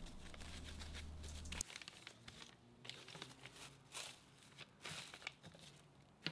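Plastic wrap faintly crinkling and rustling in the hands as small car badges are wrapped in it, with scattered soft clicks. A low hum stops about a second and a half in.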